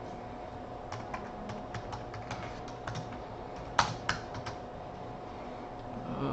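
Typing on a computer keyboard: a quick run of key clicks over about three seconds, with one sharper click near the middle, then the keys stop. A faint steady hum underneath.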